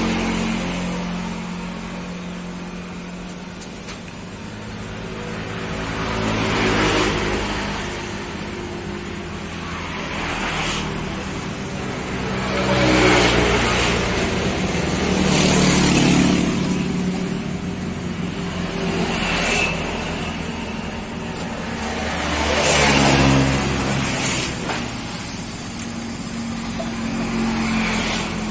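Road traffic: a string of motor vehicles passing one after another, each swelling up and fading away over a few seconds, about six times.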